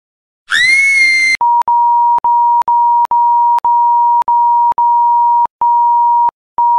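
Electronic sound effect: a short rising screech of about a second, then a steady single-pitch beep tone like a flatline, broken by clicks and brief dropouts about every half second.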